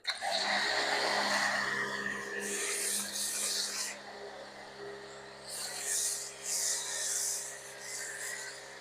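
Pressure washer spraying soap through a foam cannon: a steady hiss with a low hum underneath, surging louder and sharper three times.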